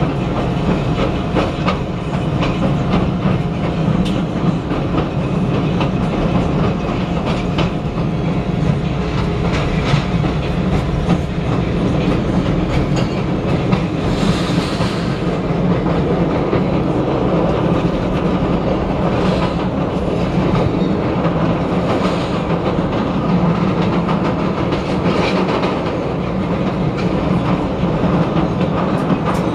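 Steady wheel and track noise inside a 1992 Morrison-Knudsen 3200-series CTA rapid-transit car running at speed on elevated track, with a few brief hisses in the second half.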